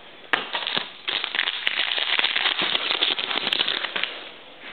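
Foil wrapper of a trading-card pack being torn open and crinkled by hand: a dense, irregular crackling rustle, with a sharp tick just after the start and the thickest crackle from about a second in until near the end.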